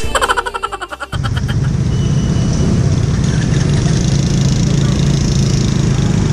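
Suzuki Skydrive Sport scooter riding along a road: its engine and wind on the handlebar-mounted camera's microphone make a steady rushing noise. The noise comes in about a second in, after a short fluttering sound.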